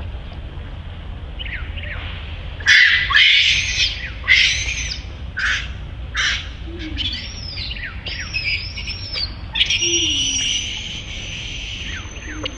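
Baby monkey giving a series of about seven high-pitched squealing screams, the last one held for about a second; the distressed calls of a frightened infant.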